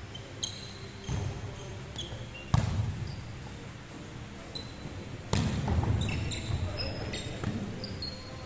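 Volleyball rally: several sharp smacks of hands and forearms on the ball, the loudest about two and a half and five seconds in, ringing in a large echoing hall. Short high squeaks come from sneakers on the wooden court.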